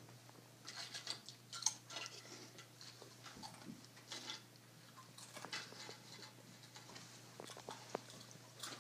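Faint clicks and crackles of someone eating with his fingers from a plate: food handled, picked up and chewed, in scattered irregular ticks.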